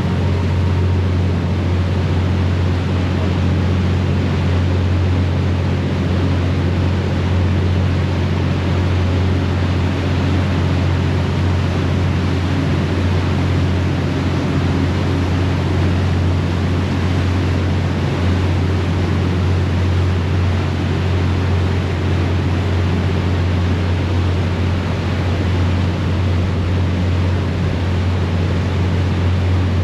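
Harbour ferry's engines running with a deep, steady hum, under the constant rush of the wake churning behind the stern.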